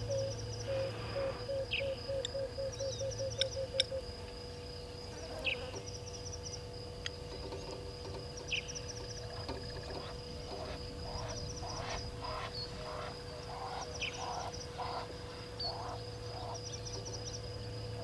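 Morning bush chorus at a waterhole: birds calling over a steady high insect trill. A run of low notes quickens over the first few seconds, and short chirps and calls come scattered throughout.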